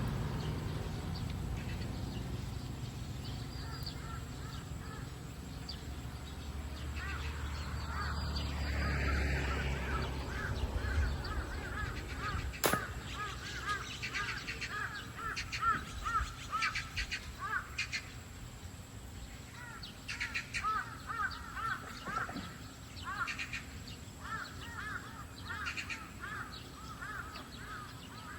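Animal calls: bouts of rapid, short, repeated calls, several a second, starting a few seconds in. A low rumble fades out in the first ten seconds, and a single sharp click comes near the middle.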